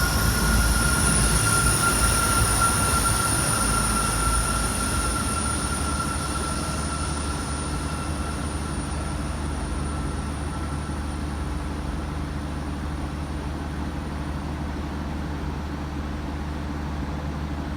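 Train running with a low rumble and a high, steady squeal from the wheels; the squeal fades away about ten seconds in and the rumble slowly grows quieter.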